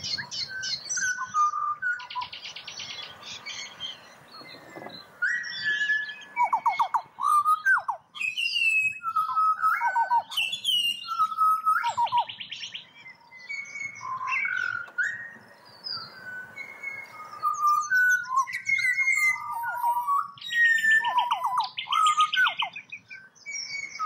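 Young pied butcherbird song: clear fluting whistles mixed with downward-sliding notes and quick rattling runs of repeated notes, carried on in long phrases.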